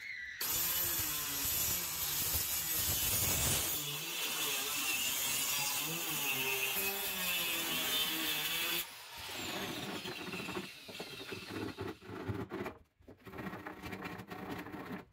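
Handheld electric circular saw cutting through a plywood board, running steadily for about eight seconds, then switched off, its whine falling as the blade spins down. After that, a handsaw's rasping strokes finish off the cut.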